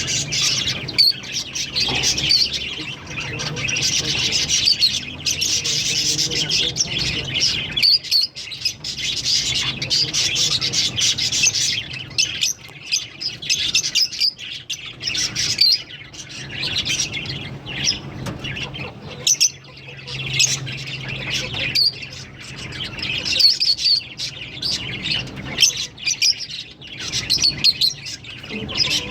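A pair of Fischer's lovebirds chirping and squawking in a near-continuous, high-pitched chatter, with a few brief lulls.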